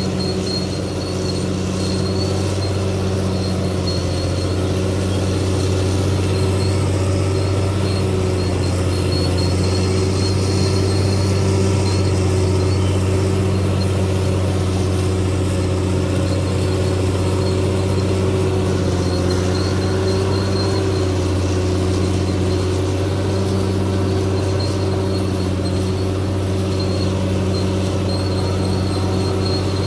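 CAT D6R XL bulldozer's diesel engine running steadily at working revs, with a faint high-pitched squeal coming and going over it.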